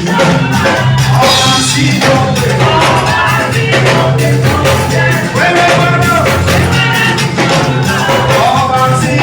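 Live band music with a singer's voice over a steady bass line and percussion.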